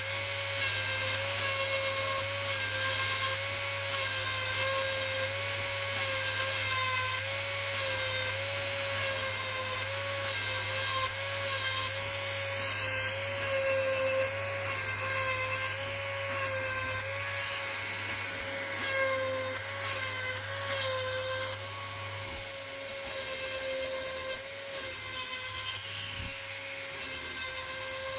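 Dremel rotary tool sharpening a chainsaw chain: a steady high whine whose pitch dips and wavers slightly as the grinding stone is worked against the cutters.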